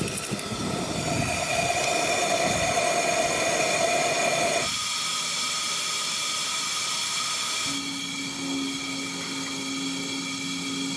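Small coal-fired steam locomotive in steam: a steady hiss with several steady tones, over a low rumble for the first half. The sound changes abruptly twice, and a steady low tone joins the hiss for the last few seconds.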